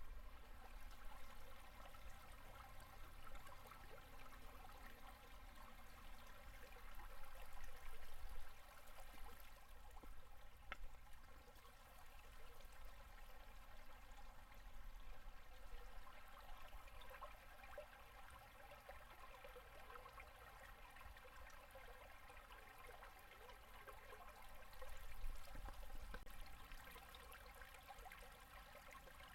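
Shallow mountain river at low winter flow gurgling over and under its ice: a faint, steady sound of running water that swells a little louder about eight seconds in and again near the end.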